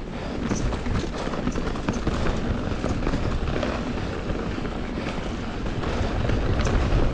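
Mountain bike descending fast over a loose, rocky trail: tires crunching over gravel and rocks, and the bike rattling with many small knocks. A steady low rumble of wind on the microphone runs underneath.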